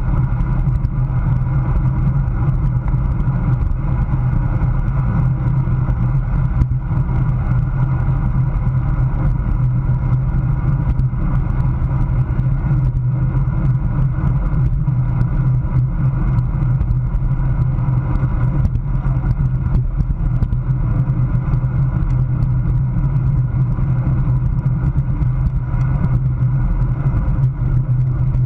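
Steady wind rush on a handlebar-mounted action camera's microphone as a road bike rides at about 20–24 mph, a constant low rumble.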